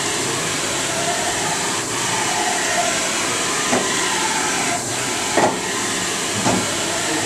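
Steady machinery hiss and whir with a faint hum, broken by a few light knocks, the loudest about five and a half seconds in.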